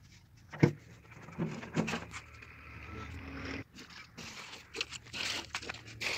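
A sharp knock, then a few softer knocks, scraping and plastic rustling: the handling sounds of red colour powder being emptied from a plastic bag into a bucket of water to mix tile colour.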